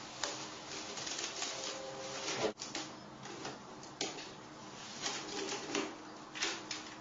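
Plastic cling wrap crackling and crinkling as hands stretch it and press it down onto a porcelain toilet bowl's rim, in many small irregular crackles.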